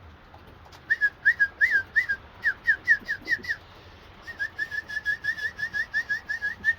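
Two runs of short, high whistled notes: about ten slurred notes over two and a half seconds, a brief pause, then a quicker string of shorter notes.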